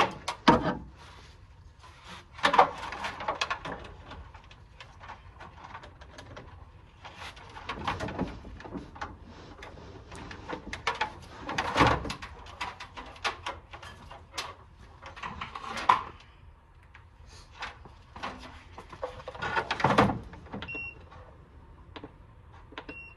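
Scattered knocks and clanks of hands working at a car battery while hooking up a battery charger. Near the end come two short high beeps, the kind a charger gives.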